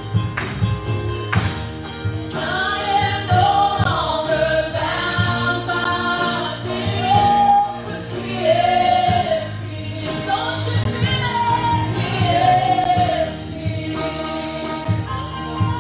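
Live gospel praise-and-worship song: a group of singers, female voices to the fore, singing in sustained phrases over a live band.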